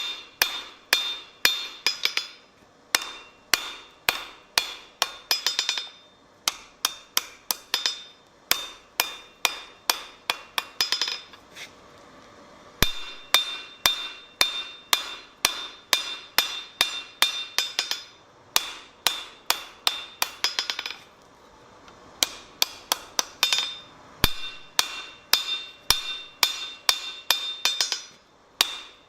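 Blacksmith's hammer striking hot steel on an anvil, about three ringing blows a second. The blows come in bouts of several seconds, broken by short pauses.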